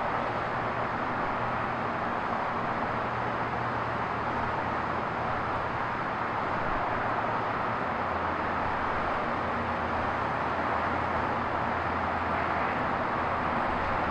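Vintage single-ended streetcar turning slowly on a turntable: a steady low mechanical hum under an even hiss, the hum shifting lower about eight seconds in.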